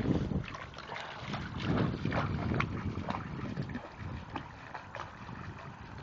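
A Rottweiler wading through a shallow, stony river, splashing and sloshing the water in irregular bursts, heaviest near the start and about two seconds in. Wind rumbles on the microphone.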